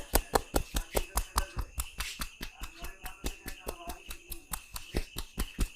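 Rapid, even slapping of hands on skin, about five to six strokes a second: a barber's percussive chopping and tapping massage strokes. A steady high tone runs underneath.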